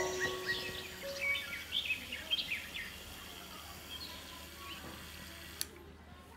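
Small birds chirping in short quick calls over a faint steady hiss, thinning out after about four seconds. A single sharp click near the end.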